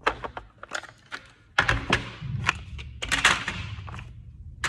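Socket set's plastic holder being handled: a string of irregular clicks and knocks, a few of them louder clatters.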